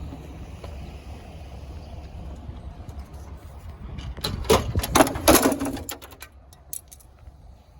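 Scrap metal clanking and rattling as it is handled: a quick run of sharp metallic knocks lasting about two seconds, starting about four seconds in, over a low rumble.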